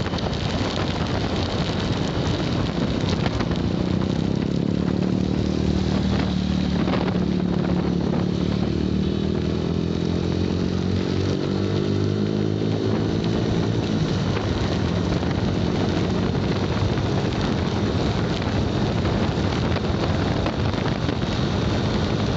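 Motorcycle engine running while riding, its note shifting up and down with speed, under steady wind rush on the microphone.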